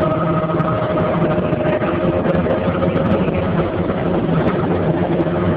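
Helicopter engine and rotor noise heard inside the cabin: a steady, loud drone with a constant whine.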